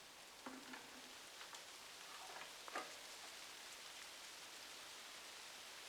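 Faint, scattered clicks and ticks of deer antlers being lightly tapped together (soft antler rattling or tickling), a few in the first three seconds, over a steady hiss.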